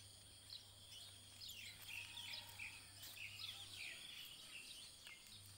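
Faint bird chirping: a quick run of short falling notes for about two seconds in the middle, over a faint steady hum.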